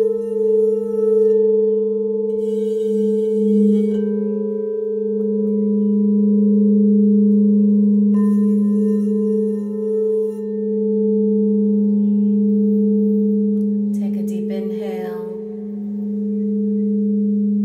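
Crystal Tones Crystal Alchemy singing bowls ringing together in two steady sustained tones, one low and one higher, slowly swelling and ebbing.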